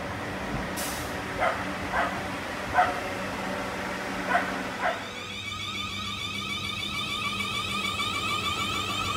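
A dog barking five times in short single barks, over the steady rumble of a passing South Western Railway electric train. From about five seconds in, a steady warbling electronic tone takes over.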